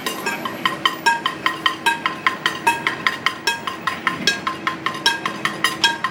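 Music: rhythmic metallic clinking percussion, about five clicks a second, each with a short bright ring, over a faint steady low drone.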